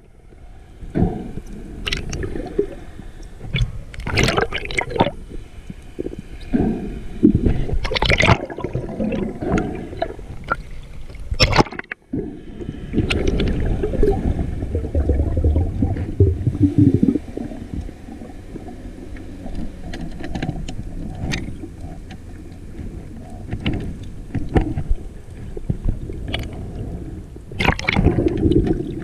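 Muffled underwater water noise on a GoPro in its dive housing: irregular gurgling and swishing over a low rumble as the diver kicks and moves through the water, with occasional knocks.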